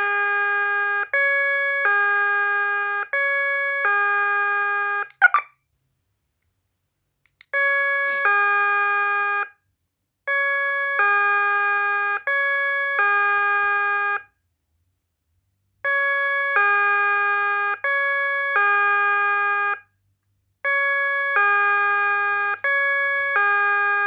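KERUI wireless alarm horn sounding its electronic two-note ding-dong chime in alert mode. The chime repeats over and over in phrases a few seconds long, with short pauses between them.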